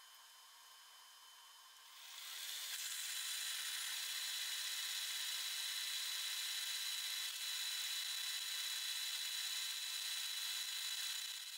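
A milling machine's spindle drives a drill bit into a dozer flywheel, boring a bolt hole: a steady, high-pitched whir and hiss of cutting that starts about two seconds in and eases off near the end.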